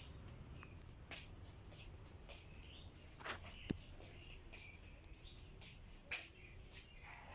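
Steady high insect chirring in the background, broken by scattered faint clicks and rustles; the sharpest come about four and six seconds in.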